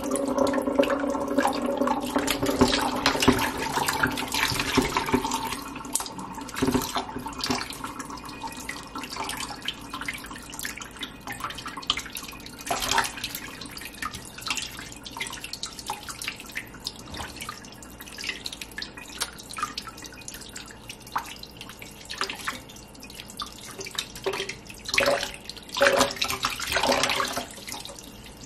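Kitchen tap running into a pot while hands rinse and rub raw chicken pieces under the stream, with irregular splashes and water handling. A steady hum sounds for the first few seconds and then fades, and the loudest splashes come near the end.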